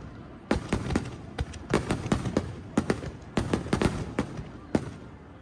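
Aerial fireworks bursting in quick, irregular succession: a rapid series of sharp cracks and bangs over a low rumble.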